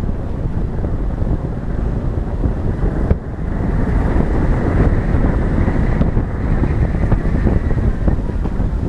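Wind buffeting a microphone mounted on the hood of an off-road vehicle driving down a dirt road, over the low rumble of the vehicle. The noise is steady and dense, with a brief dip and a click about three seconds in.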